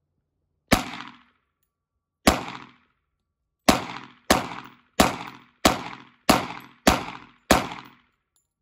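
Nine shots from a Glock pistol fed from a 50-round drum magazine, each with a short echo. Two single shots come about a second and a half apart, then seven follow in steady succession, about one every two-thirds of a second.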